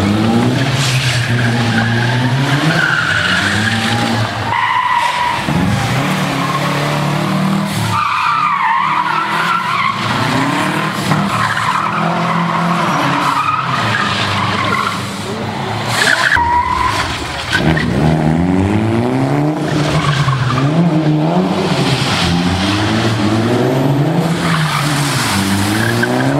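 Mitsubishi Lancer Evolution and Subaru Impreza rally cars driven hard through tight turns: engines revving up and falling back over and over with the gear changes, and tyres squealing in the corners several times.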